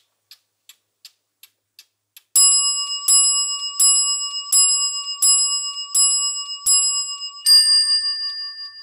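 A clock ticking softly, about three ticks a second, then a clock's bell chime striking seven times at an even pace, each strike ringing on. A last, different-pitched bell note follows and rings out, fading near the end.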